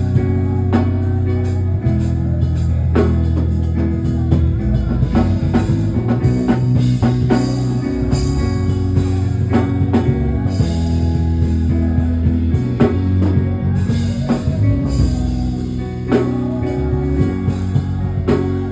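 Live band music with electric guitar, bass and drum kit playing a steady groove.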